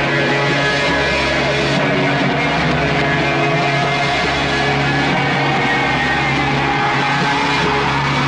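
Loud background music: a dense track with held bass notes that change every second or two, and a tone that slowly rises near the end.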